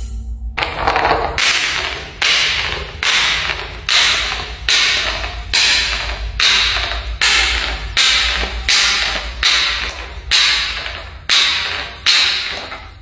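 A plastic drink bottle tumbling down marble stairs, hitting each step in turn. It makes a steady run of sharp knocks, a little more than one a second, each dying away over about half a second.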